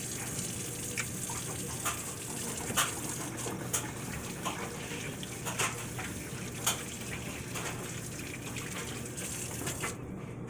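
Water running from a tap while hands are washed under it, with scattered splashes. The tap is shut off near the end.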